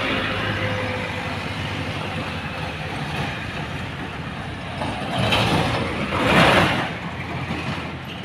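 Heavy diesel trucks climbing a steep hill, their engines running steadily under load as one overtakes another. About five seconds in, two loud rushing swells of noise rise and fade about a second apart.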